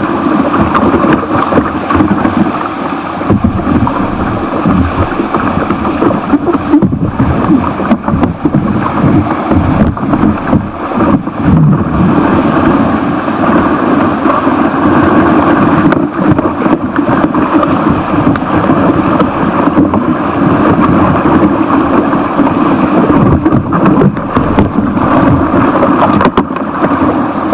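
Loud rushing whitewater of a small stream rapid heard close up from a kayak, with constant splashing and irregular knocks of water against the boat and paddle.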